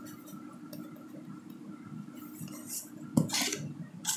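Ground black pepper shaken from a shaker container over a plastic bowl: faint gritty rattles, with a sharp knock about three seconds in, over a low steady hum.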